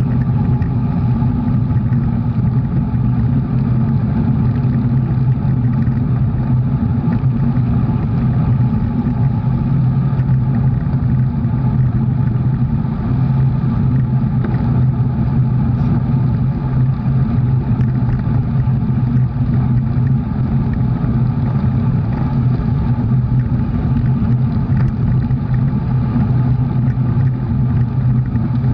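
A motor vehicle's engine running at a steady speed: a constant low drone with no change in pitch.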